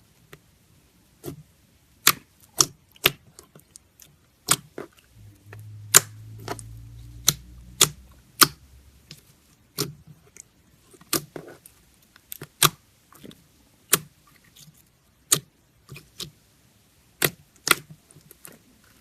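Slime being squeezed and pressed by hands, giving sharp, irregular popping clicks about once a second as trapped air bubbles burst.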